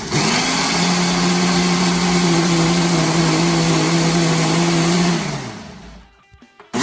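Electric countertop blender running: the motor comes up to speed and runs steadily with a whirring hum, blending frozen milk, bananas and ice cubes into a milkshake, then spins down about five seconds in; it starts up again just at the end.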